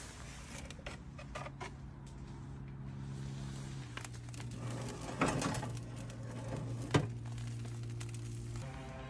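Soft background music of held low chords that change about four seconds in and again near the end. Over it, a few clanks and knocks of the smoker's wire racks and foil pan being handled, the loudest a clatter about five seconds in and a sharp knock about seven seconds in.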